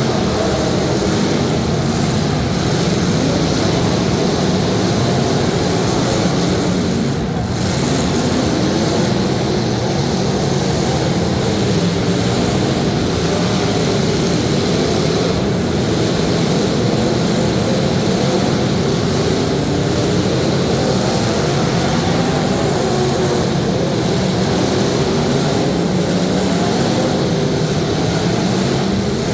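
Several demolition derby car engines running loud and revving, their pitch rising and falling unevenly and without a break.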